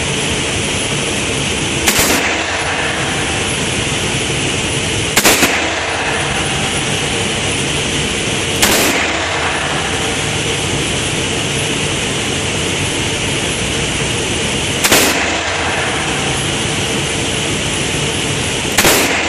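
Five single shots from a .44 Magnum Smith & Wesson revolver, fired a few seconds apart with a longer pause before the fourth, each followed by a short echo. A loud, steady rushing noise runs underneath.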